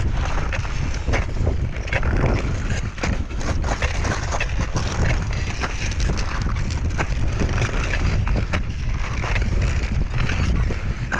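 Wind buffeting the microphone in a steady low rumble, with irregular sharp crunches of footsteps on glacier snow and ice.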